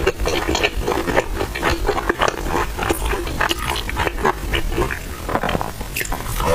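Close-miked eating sounds: a person chewing oil-skin buns with a quick, irregular run of wet mouth smacks and clicks.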